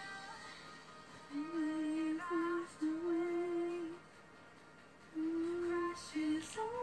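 A woman's voice singing a slow tune in long, steady held notes, with a pause of about a second in the middle.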